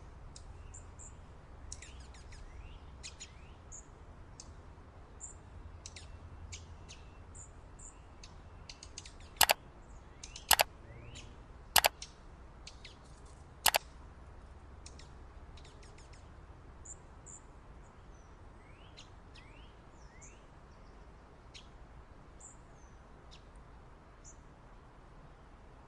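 Small backyard birds chirping in short high notes throughout, over a low steady rumble. Four loud sharp clicks come between about ten and fourteen seconds in.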